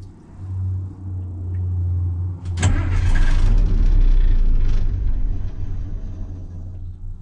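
Cold start of a 1980 Ford F700 truck engine: the starter cranks it for about two and a half seconds, then the engine catches suddenly and runs loudly, revving before easing back toward a steadier run.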